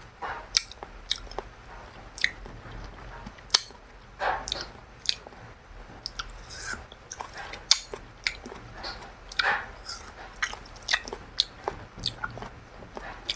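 Close-up eating sounds of a person chewing and biting food, with irregular wet smacks and sharp little clicks.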